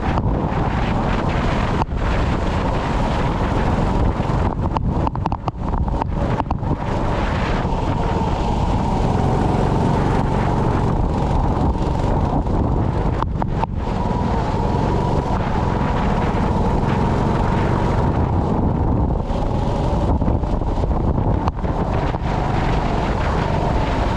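Go-kart engine running at racing speed under heavy wind rumble on the onboard microphone. The engine note holds near one pitch, with a few brief dips.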